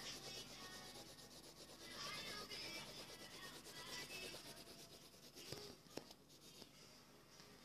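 Faint rubbing and scuffing of a phone's microphone as the phone is handled close to the face, with two small knocks a little over five seconds in.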